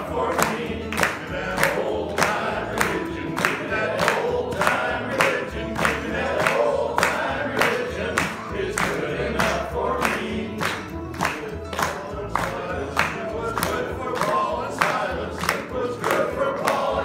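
Group of men singing a song together in unison, over accompaniment with a steady beat about twice a second and a deep bass part.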